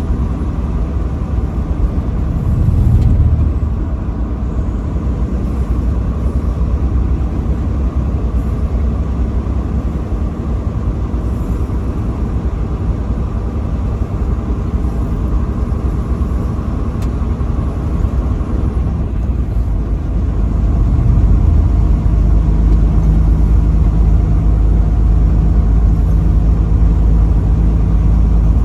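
Truck engine and road noise while driving: a steady low rumble with a brief swell about three seconds in. It grows louder with a steady low engine hum about twenty seconds in.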